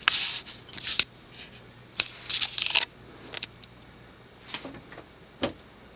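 Rustling handling noise with a few sharp clicks, about a second apart at first and one more near the end.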